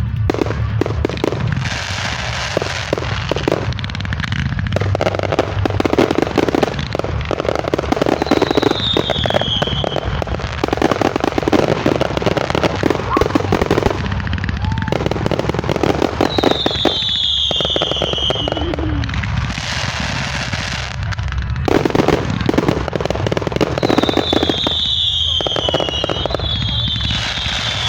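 Consumer fireworks going off close by: continuous dense crackling and popping, with a few short whistles that dip slightly in pitch.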